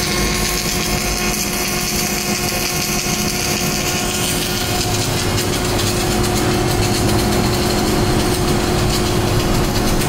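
Electric welding arc crackling and hissing steadily, with a steady hum of machinery beneath.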